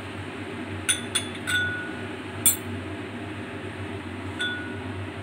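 Small glass prep bowls clinking against each other and the glass mixing bowl as they are handled: about five sharp clinks, two of them ringing briefly.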